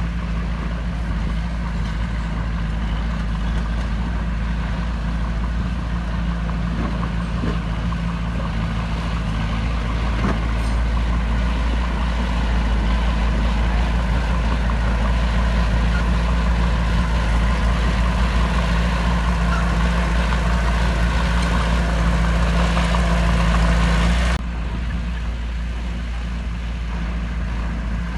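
Heavy diesel engine of earthmoving machinery running steadily with a deep, even drone. It grows somewhat louder in the middle, then drops abruptly to a lower level near the end.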